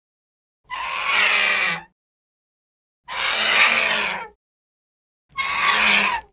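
Pteranodon sound effect: three rough, screeching calls of about a second each, separated by complete silence.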